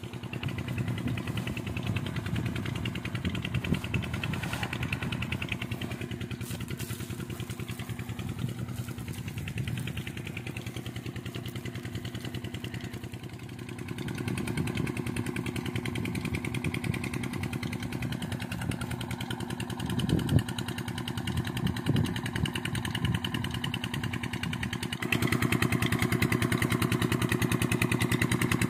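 An engine running steadily, a low even hum with a fast regular beat, louder in the last few seconds. A single knock about twenty seconds in.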